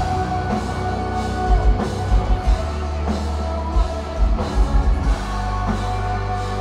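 Live metalcore band playing at full volume: distorted guitars and bass holding sustained chords over drums, with several clusters of rapid bass-drum hits.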